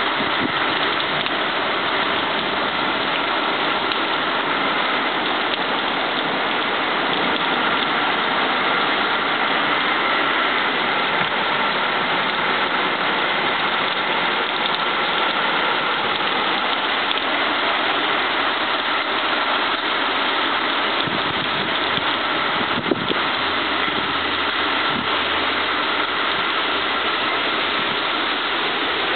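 Heavy thunderstorm rain pouring down, a steady, even hiss that keeps up throughout, with one brief click about three quarters through.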